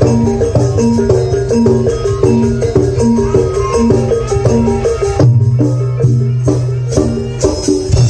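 Live barongan accompaniment music from a traditional percussion ensemble with drum kit: a steady repeating pattern of pitched notes over drums and jingling percussion, with a low sustained note that comes in about five seconds in.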